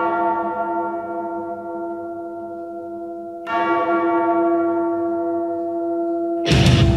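A bell-like chime in the soundtrack rings and slowly fades, is struck again about three and a half seconds in and fades again. Loud rock music comes in near the end.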